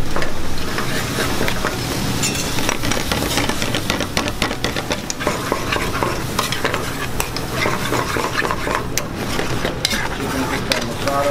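A utensil stirring and scraping through curry sauce in a stainless steel pan over a gas flame, with the sauce sizzling and many quick clicks of the utensil against the pan.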